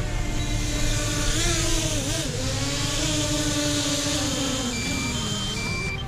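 Jeep engine running hard while being driven around in drifting runs, its pitch dipping and recovering about two seconds in, then falling away near the end.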